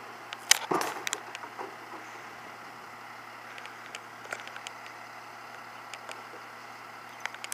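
Freightliner garbage truck's diesel engine running as the truck creeps along, with a cluster of sharp knocks and clatter about half a second to a second in.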